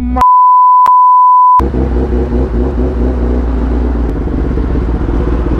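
A censor bleep, a loud steady beep lasting about a second and a half, cuts in just after the start. After it, a motorcycle engine runs steadily at low revs.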